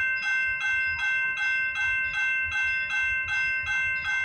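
Railway level-crossing bell ringing in a rapid, even rhythm while the crossing gates are down, warning of an approaching train.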